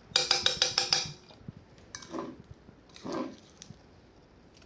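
Metal utensil clattering against a dish as mashed banana is scraped into a glass: a quick run of about eight ringing taps in the first second, then two soft, muffled sounds.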